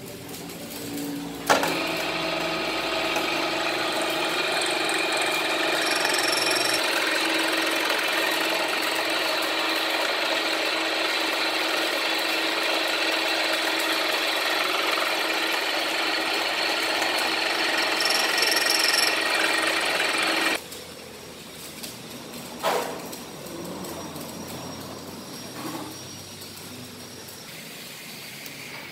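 A power tool runs steadily for about nineteen seconds, cutting valve pockets into a motorcycle piston. It starts with a click and cuts off suddenly, and a single knock follows a couple of seconds later.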